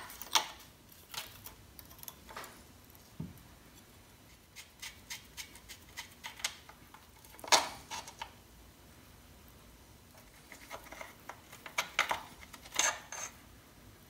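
Scattered metallic clicks and clinks of a combination spanner on the bolts of a crusty bolt-on motorcycle side stand, then the freed stand knocking against the frame as it is worked off by hand. The sharpest clinks come about halfway through and again near the end.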